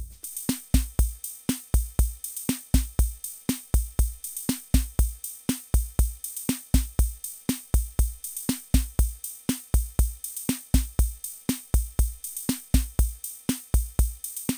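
Instrumental background music with a steady drum-machine beat: deep kick-drum thumps and sharp clicks repeating evenly.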